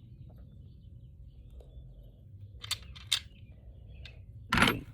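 Steel sockets being handled and set onto a socket holder: two short sharp metal clicks a little past halfway, then a louder clack near the end.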